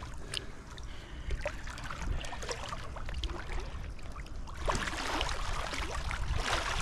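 River water splashing and dripping as two big wels catfish are let go back into the river, with small knocks and drips throughout and two louder bursts of splashing near the end.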